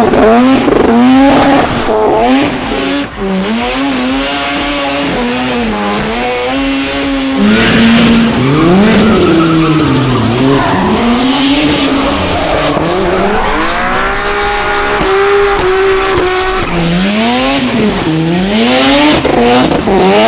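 Semi-peripheral-ported, turbocharged Mazda 13B twin-rotor engine revving hard, its pitch climbing and dropping again every second or two, over a steady hiss of tyres squealing and skidding.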